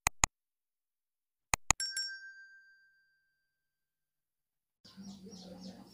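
Subscribe-button sound effects: two quick mouse clicks, then about a second and a half later two more clicks and a notification-bell ding that rings out for about two seconds. Near the end, faint outdoor background with a low hum and repeated bird chirps begins.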